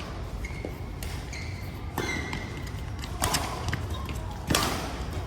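A badminton rally: rackets striking the shuttlecock four times, about a second apart, with the loudest smash near the end. Short high squeaks of shoes on the court floor come in between.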